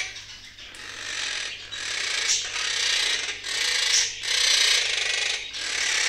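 Wild-caught green monk parakeets growling: harsh, hissing calls in runs of about a second with short breaks between. It is their defensive growl, kept up because they will not tolerate a person in the room.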